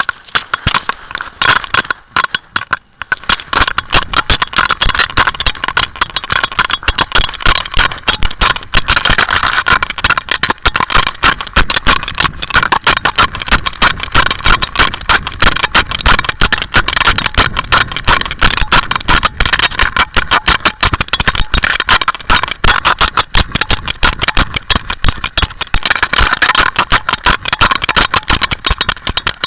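Rapid, continuous rattling and scraping handling noise from a dog-worn pet camera rubbing against the Jack Russell terrier's fur as the dog moves. It gets much louder about three seconds in.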